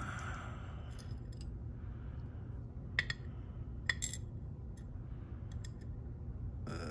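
Scattered small metallic clicks and clinks of pick and tension tool working in an ASSA Twin Exclusive 5700 lock cylinder as the picked plug is turned back to the locked position, the sharpest about three and four seconds in, over a steady low hum.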